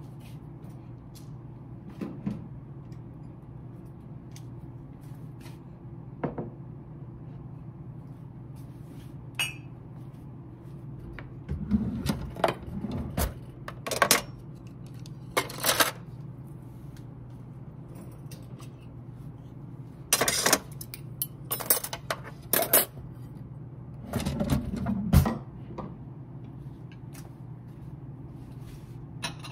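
Objects being handled: scattered knocks, clinks and clatters, busier from about halfway through, over a steady low hum.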